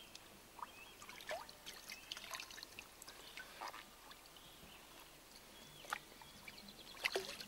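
Faint, scattered water splashes and drips as hands stir a tub of water and lift a bream out to lower it into the river.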